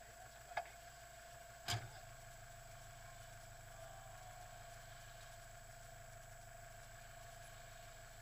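Faint engine idle of a stationary off-road 4x4, a low, even pulsing. Two sharp knocks come about half a second and just under two seconds in.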